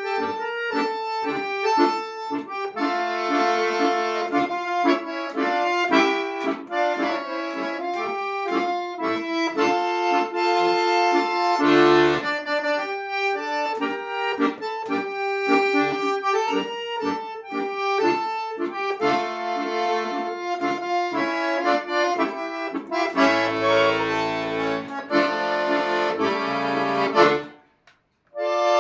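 Chromatic button accordion playing a tango solo, with a melody over chords and bass notes. The playing breaks off for a moment just before the end.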